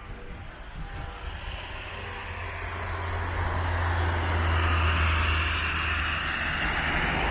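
A motor vehicle passing close on a city street, its engine rumble and tyre noise swelling over a few seconds to a peak about four to five seconds in.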